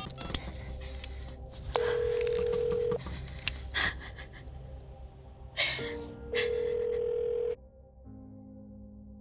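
Telephone ringing tone in a payphone handset: a steady tone sounds twice, each about a second long, several seconds apart, with a few short rustles or knocks between the rings.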